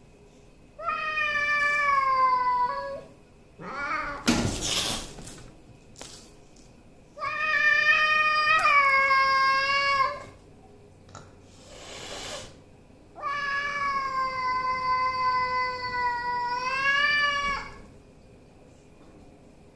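Tabby cats facing off, one yowling: three long, drawn-out wails of two to four seconds each, with two short bursts of noise between them.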